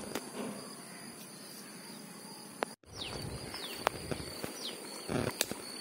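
Quiet outdoor ambience: a steady high-pitched insect drone, a few short falling bird chirps and scattered faint clicks. The sound cuts out completely for a moment about halfway through.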